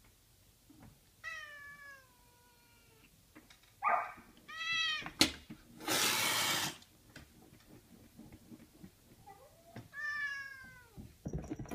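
A domestic cat meowing: three drawn-out calls that fall in pitch, with a sharp tap a little after halfway and a short loud noisy burst just after it.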